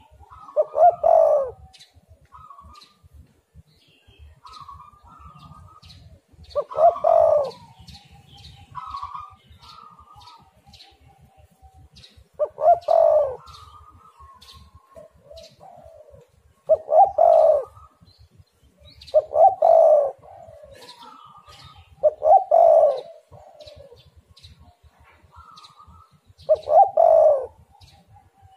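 Spotted dove cooing over and over: about seven loud coo phrases a few seconds apart, with softer, higher coos between them. Faint chirps of small birds run underneath.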